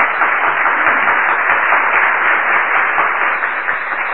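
Audience applauding: many hands clapping in a dense, steady wash that eases slightly toward the end.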